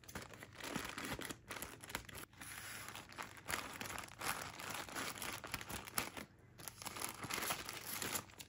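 Plastic poly mailer bag crinkling and tearing as it is handled and cut open with scissors: a dense, continuous crackle of small rustles, with a brief lull about six and a half seconds in.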